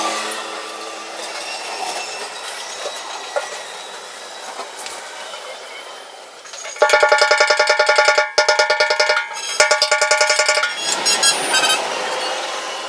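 Rapid hammer strikes on sheet metal, about ten blows a second, each ringing with the same metallic tone, coming in a burst about halfway through and in shorter runs near the end; the kind of tapping used to knock dents out of a motorcycle fuel tank.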